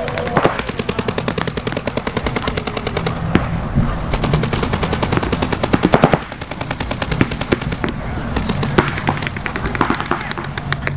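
Paintball markers firing in long rapid strings of about ten shots a second, with brief lulls between strings.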